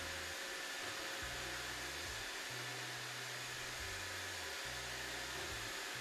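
iRobot Roomba 605 robot vacuum running in spot-cleaning mode: the steady whir of its suction fan and brushes, under a low hum that shifts in pitch every second or so as it drives its widening spiral.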